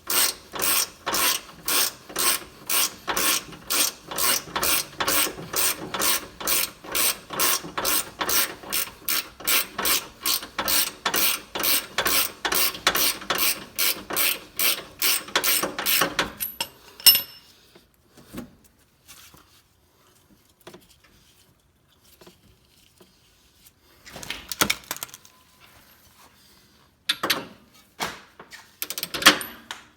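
Hand ratchet wrench worked back and forth on a bolt, clicking at an even pace of about two and a half strokes a second. It stops about halfway through; a single sharp clank follows, then a few short bursts of ratcheting near the end.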